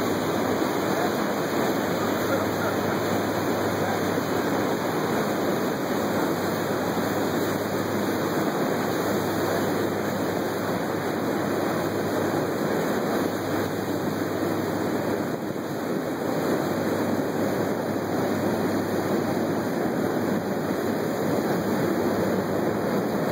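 Steady rushing of a boat underway on the river, water and wind noise with a low, even engine hum beneath it.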